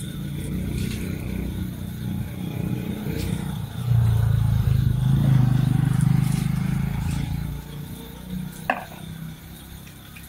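A motor vehicle's engine running, growing louder about four seconds in and easing off some three seconds later, with a brief sharp sound near the end.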